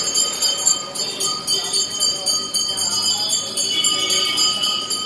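Temple bells ringing rapidly and without a break, a steady ringing that goes on throughout.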